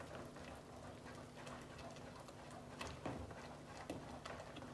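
Silicone whisk stirring thick chocolate pudding in a pot: faint soft taps and scrapes, with a couple of sharper clicks about three and four seconds in, over a faint steady low hum.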